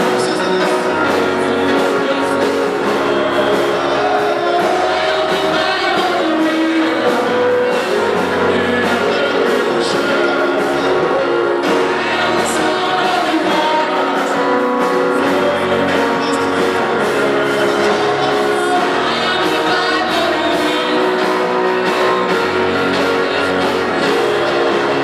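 Gospel music: voices singing over instrumental accompaniment with a bass line and a steady beat.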